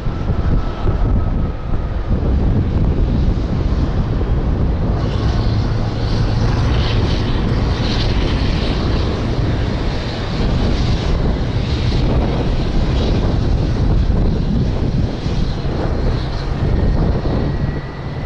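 Boeing 747 airliner's jet engines heard as it lands: a steady, loud rumble that grows brighter and hissier from about five seconds in, as the jumbo jet nears and touches down.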